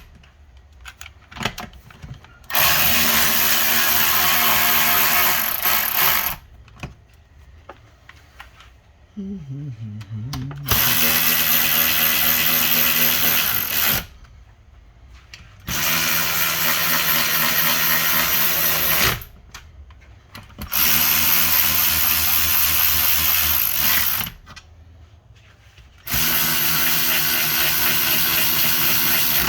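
Cordless power drill/driver running five times, each run about three and a half seconds, tightening down the transmission case bolts in turn.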